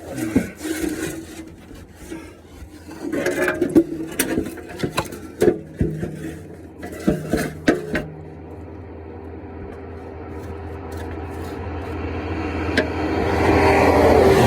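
Scraping and rubbing with a run of sharp knocks as a metal oil pan is pushed and worked against the underside of an engine, fighting to seat. Over the last several seconds a steady rumble grows louder.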